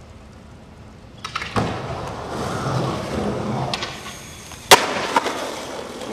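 Skateboard wheels rolling on concrete with a few clicks. About four and a half seconds in, the board lands with one loud slap off a drop, the loudest sound, and then rolls on.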